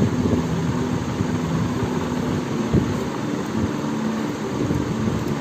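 Steady mechanical hum of a running motor, with a low steady tone and a single faint click near the middle.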